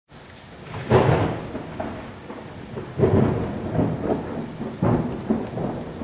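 Thunderstorm sound effect: steady rain with three rolls of thunder about two seconds apart.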